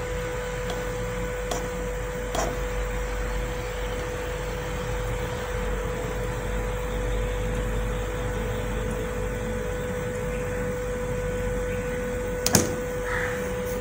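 Energized stepper motor driven by a 2DM860 microstep driver, humming with a steady mid-pitched tone as the PLC program steps it. A faint click comes about two and a half seconds in and a sharper click near the end.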